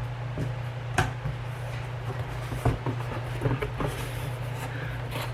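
An empty cardboard box being opened and handled: a few scattered knocks and short rustles of the flaps, over a steady low hum.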